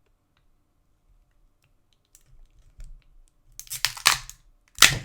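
Hard plastic case of an Arris BPB044S modem backup battery pack cracking and crunching as it is levered apart with channel-lock pliers. A few faint clicks come first, then loud crackling bursts over the last second and a half, the sharpest near the end, as one side of the case breaks free.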